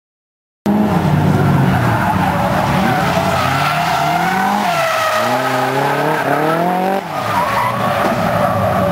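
Drift car, a Nissan S14, sliding through a corner: its engine revs up and down while the tyres squeal. The sound starts suddenly after about half a second of silence, and drops in level briefly about seven seconds in.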